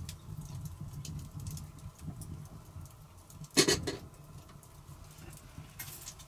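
Wood fire crackling in short faint snaps, with one loud brief knock about three and a half seconds in as things are handled on the stone hearth.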